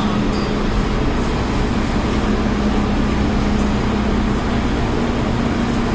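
Steady mechanical hum of a stationary MTR M-Train with its doors open, with a constant low tone under an even rushing noise.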